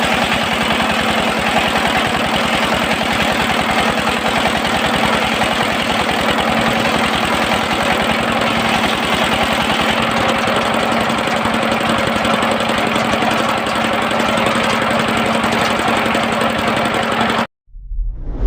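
Engine driving a circular-saw sawmill, running steadily with a rapid, even knocking pulse. It cuts off abruptly near the end.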